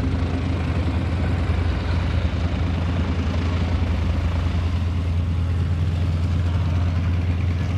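North American SNJ Texan's nine-cylinder Pratt & Whitney R-1340 radial engine and propeller running steadily in aerobatic flight, a constant low drone.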